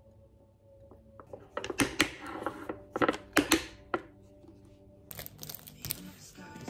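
Snap-lock plastic lid set onto a glass food container and its clip latches pressed shut: a run of sharp clicks and knocks. Soft background music comes in about five seconds in.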